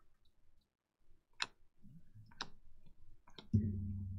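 Chromium trading cards clicking against each other as they are flipped through by hand: three sharp clicks about a second apart. A low steady hum comes on near the end.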